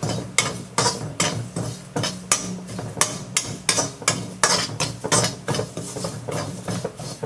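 Spatula scraping and knocking against a kadai, about three strokes a second, as grated coconut is stirred continuously while it dry-roasts on a low flame. A steady low hum runs underneath.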